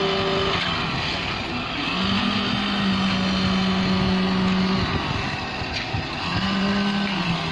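Engine of a concrete pump truck running steadily during the pour, with a held low hum that swells in for a few seconds, drops away, and returns briefly near the end.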